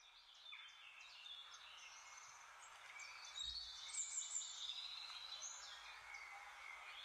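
Several songbirds singing at once, a chorus of short overlapping whistled phrases and chirps over a faint outdoor hiss, fading in at the start.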